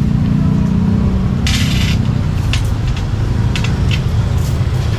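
A motor vehicle's engine running steadily with a low rumble, with a short hiss about a second and a half in and a few light clicks after it.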